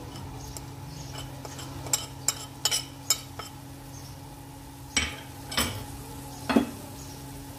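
Metal spoon clinking against a plate and a steel pressure cooker while salt and spices are added to meat and onions: four light ticks a couple of seconds in, then three louder clanks with a short ring. A steady low hum runs underneath.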